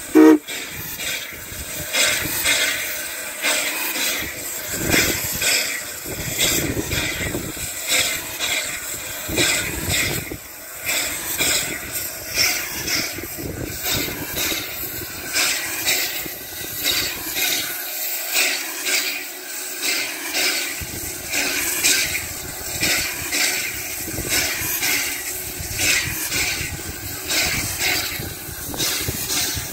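Steam locomotive working, with an even beat about once a second over a steady hiss. A short, loud pitched sound comes right at the start.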